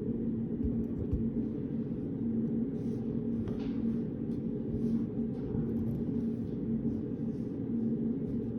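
Steady low hum of a reading room's background noise, with a constant low tone, likely from ventilation or air conditioning. Faint light ticks and rustles of desk work sound now and then over it.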